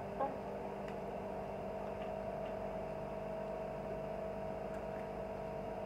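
A steady low hum with a faint click about a quarter-second in and a few faint ticks later.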